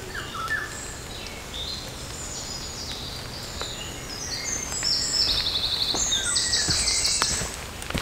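Songbirds singing in woodland: a run of varied high whistled phrases and rapid trills, growing busier and louder through the second half. A few faint footsteps on leaf litter near the end.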